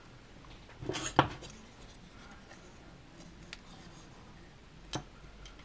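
Small plastic clicks and taps as a plastic action figure is handled and its wing pieces are pressed into the slots on its back. A short cluster of clicks comes about a second in, the loudest of them, with a fainter click later and another near the end.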